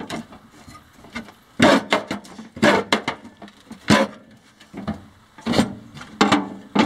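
Sheet-metal strip scraping against the rim of a hole in a steel tube as it is pulled through with locking pliers, in several short, separate bursts.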